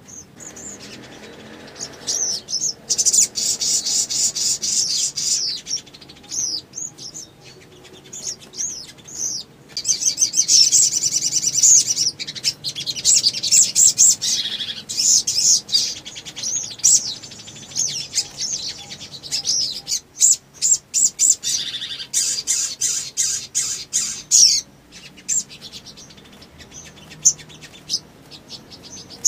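Caged sogon (sogok ontong) singing long runs of rapid, high twittering and chattering, broken by short pauses: its full, sustained song, the kind used as a lure to set other sogon singing.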